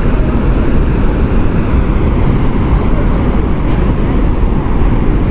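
Waterfall pouring, a loud steady rush of water.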